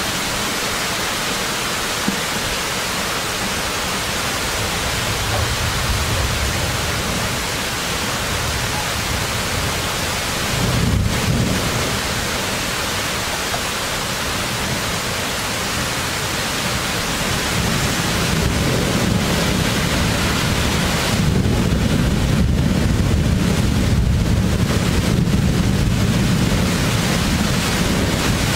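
Heavy rain pouring steadily, with thunder rumbling: a short low rumble about eleven seconds in, and a longer rolling rumble through the last third.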